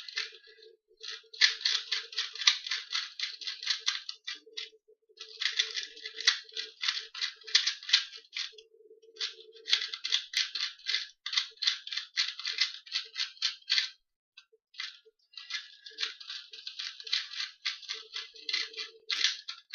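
2x2 Rubik's cube being speed-solved by hand: rapid bursts of plastic clicking and rattling as the layers are turned, broken by short pauses between sequences.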